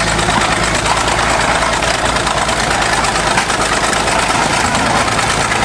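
Diesel engine of a 1953 International TD-20 crawler bulldozer running steadily at idle, loud and close, with a fast even firing beat.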